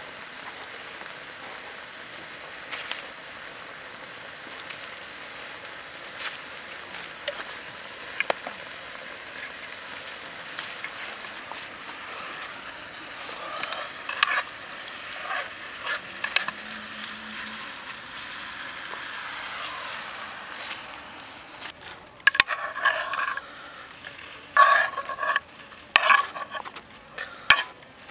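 Squid stir-fry sizzling in its sauce in a pan, with a spatula scraping and tapping the pan now and then as it is stirred. From about 22 seconds in, a run of sharper, louder utensil clinks and scrapes.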